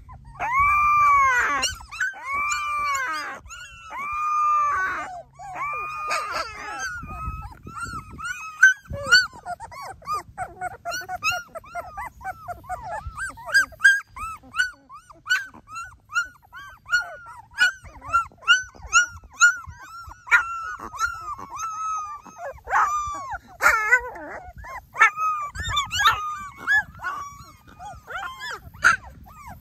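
Three-week-old Labrador retriever puppies whining and crying: a few long drawn-out cries in the first six seconds, then a busy stream of short high squeaks and yips, several a second.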